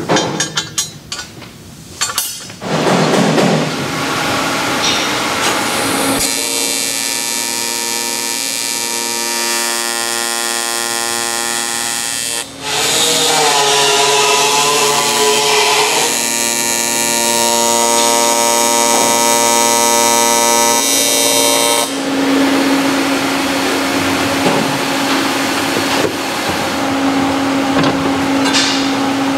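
Metal lathe cutting down weld bungs, running with a steady ringing, many-pitched machining tone and a wavering squeal midway through. A few knocks come first, and a lower steady hum comes to the fore near the end.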